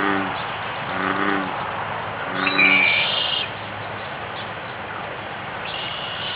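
American bullfrog calling: three short, deep, moo-like notes about a second and a quarter apart, then it stops about three seconds in. A bird chirps as the last note ends, and again near the end.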